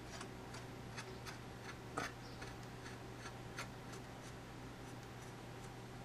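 Faint, irregular clicks of a screwdriver driving a small screw into a laptop's plastic case, the strongest about two seconds in.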